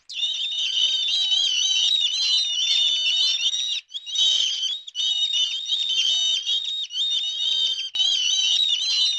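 Birds chirping in a dense, high-pitched, warbling chorus, with two brief breaks.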